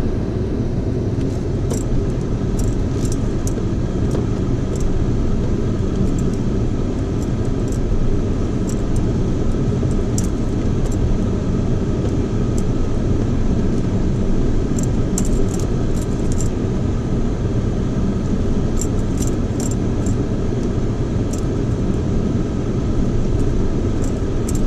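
Vehicle driving slowly over a rocky dirt road: a steady low rumble with frequent small clicks and rattles, in clusters.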